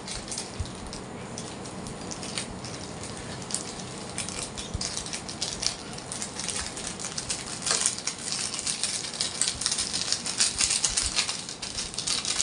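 Hands mixing Maggi noodles: a dense run of small crackles and clicks, busier in the second half.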